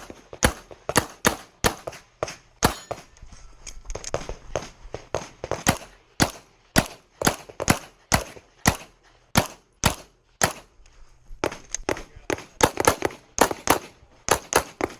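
A 9mm Glock 34 pistol firing a USPSA stage: about thirty sharp shots in quick bunches of two or three, with short pauses between groups and a faster run near the end.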